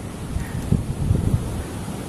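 Wind buffeting the microphone in uneven gusts over the steady rush of a fast-flowing river.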